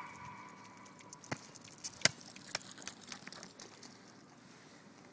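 A Jack Russell terrier playing with a football: a handful of light, irregular taps and scuffs. A faint whine fades out about a second in.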